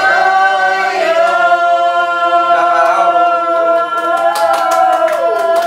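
A group of people singing a birthday song together in unison, ending on one long held note, with hand clapping breaking in near the end.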